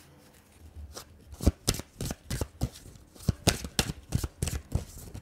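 A deck of tarot/oracle cards being shuffled by hand: a quick, uneven run of card slaps, about three or four a second, starting about a second and a half in.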